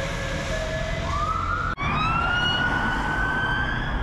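Emergency vehicle siren going by in London traffic. It sounds first as an alternating hi-lo two-note tone, then from about a second in as a wail rising steadily in pitch, with a brief dropout near the middle.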